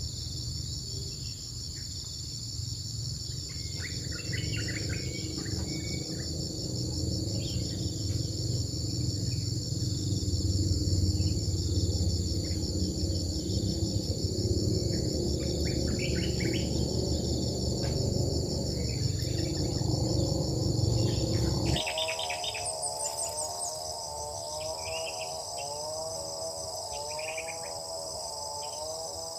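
Steady, high-pitched chorus of crickets and other insects, with short bird chirps scattered through it. A low rumble underneath stops abruptly about two-thirds of the way in, and a wavering lower tone follows.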